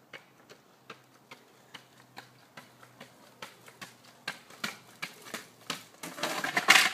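Spring stilts striking the tarmac as the rider bounces along, a sharp click about two to three times a second that grows louder as he comes closer. About six seconds in comes a loud scraping clatter as he goes down.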